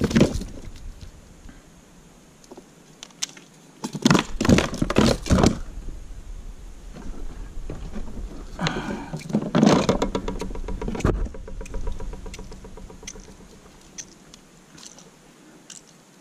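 Knocks, scrapes and rustling of a small piraputanga being held down and unhooked on a kayak's plastic deck. The noises come in two clusters, about four seconds in and again between about nine and eleven seconds, with quieter handling in between.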